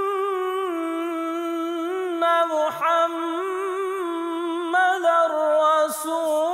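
Wordless a cappella background music: a voice humming long held notes with small melodic turns, with no instruments or beat.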